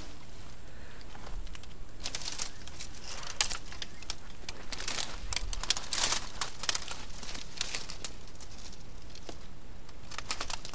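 Dry cut branches and leaves crackling and rustling irregularly as a pile of brush is disturbed, with a few louder snaps of twigs.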